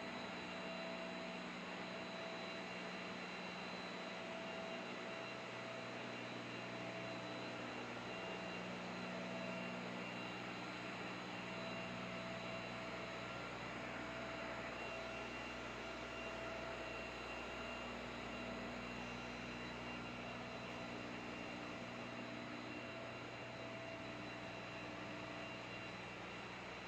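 Steady electric whir of a plastic welding tool, an even hiss with several constant tones over it.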